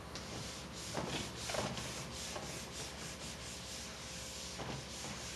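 Eraser wiping a whiteboard in repeated rubbing strokes.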